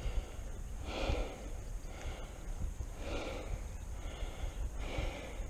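A person's breaths close to the microphone, one about every two seconds, over a steady low rumble.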